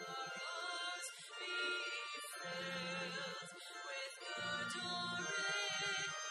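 Church music: voices singing with vibrato over an instrumental accompaniment with low bass notes.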